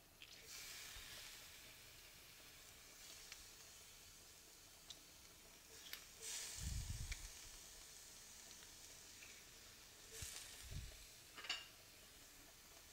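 Garlic sizzling in melted butter in a pan: a faint, steady hiss that grows stronger about six seconds in, with a couple of low bumps.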